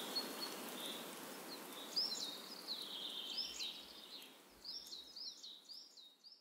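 Outdoor nature ambience: a steady hiss with a faint high chirp repeating about once a second, then a bird calling in a quick run of short sweeping chirps from about two seconds in. Everything fades out near the end.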